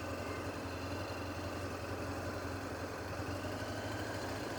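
Motorcycle engine idling or running slowly with a steady low hum.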